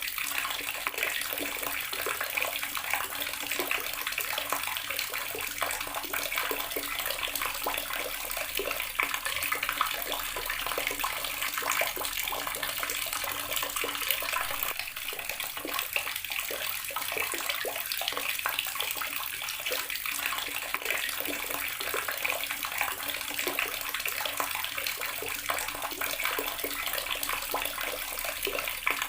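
Water running steadily from a garden tap, splashing and spattering as it falls.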